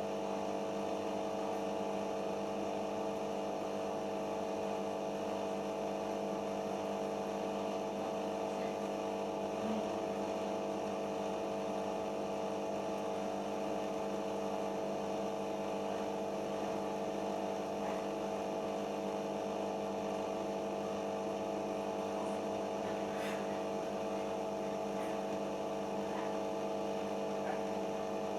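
A Siemens iQ washing machine running through its final-spin stage, giving a steady, even hum that does not change.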